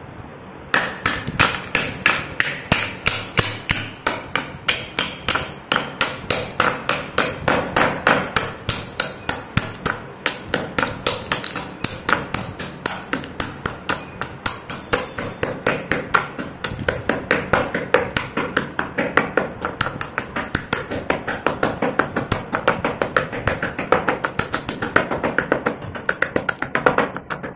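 Fluted terracotta clay cups being pounded in a white stone mortar with a stone pestle, breaking into shards. The rapid, even strikes come about three a second, starting about a second in and stopping just before the end.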